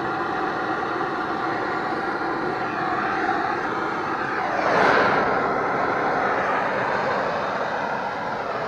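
Hand-held gas torch burning with a steady rushing hiss as it heats a battery cable terminal to melt solder, swelling louder for a moment about halfway through.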